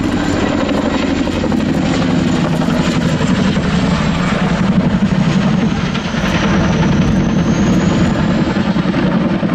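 Boeing CH-47 Chinook tandem-rotor helicopter flying a steep banking turn, its twin rotors beating rapidly over the whine of its turboshaft engines. A high whine dips in pitch and rises back about six to eight seconds in.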